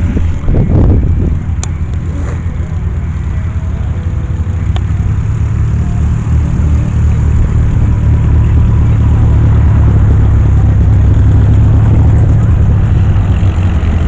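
Engine running steadily nearby with a low, even hum, getting louder through the second half; most likely a light aircraft's piston engine.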